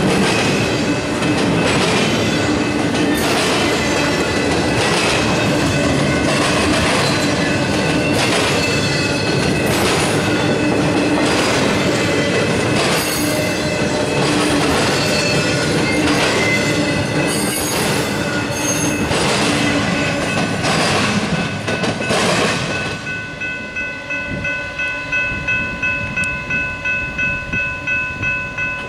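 Double-stack intermodal well cars rolling past over a grade crossing: a steady rumble with the clatter of wheels over rail joints. About 23 seconds in the last car has passed and the rumble drops away, leaving the crossing bell ringing on its own at about two strokes a second.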